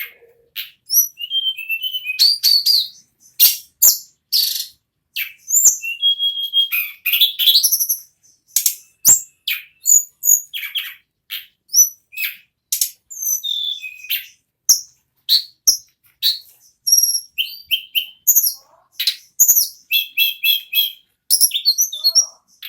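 A tledekan gunung (hill blue flycatcher) singing a long, nearly unbroken song. It runs as a rapid string of short high whistles, chirps and trills with only brief pauses between phrases.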